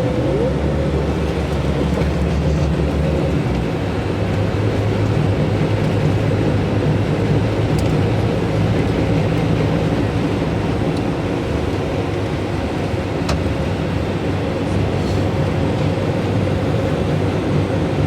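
Steady engine and road noise inside a moving tour bus, a continuous low drone with rushing road noise that does not change.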